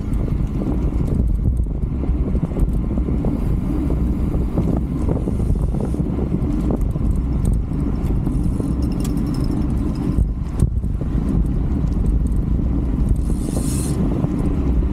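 Wind buffeting the microphone of a camera mounted on a racing bicycle at speed, a steady low rumble mixed with road and tyre noise.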